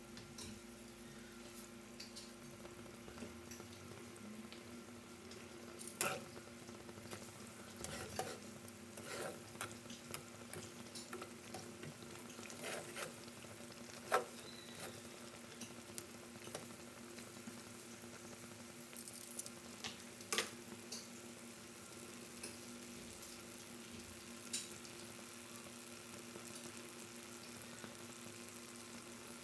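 Saba banana pieces sizzling steadily in hot oil in an aluminium frying pan, with a low steady hum underneath. Metal tongs click and scrape against the pan as the pieces are turned: a scatter of sharp clicks through the middle, loudest about halfway.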